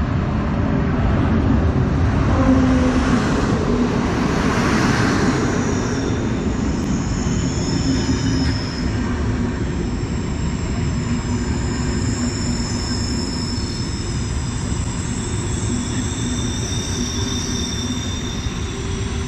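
Electric-hauled passenger train rolling slowly into the station: steady wheel rumble with a thin, high-pitched squeal of wheels on the rails. A louder rush swells about three to five seconds in, then settles.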